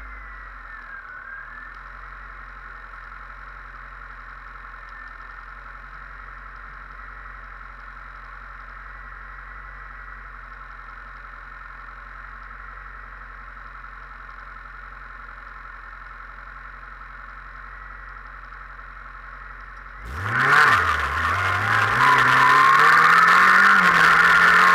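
Race car engine idling steadily, heard from inside the caged cabin. About twenty seconds in it is revved hard as the car pulls away: the engine note dips briefly, then climbs and holds high and loud.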